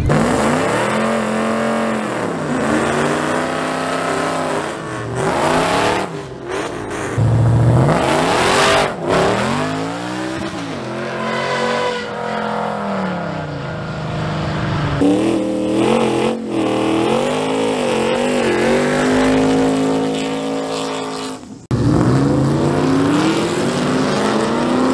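Drag-racing pickup truck's engine revving up and down, then pulling hard through the gears on a test pass down the strip. The sound comes as several clips cut together, with abrupt changes between them.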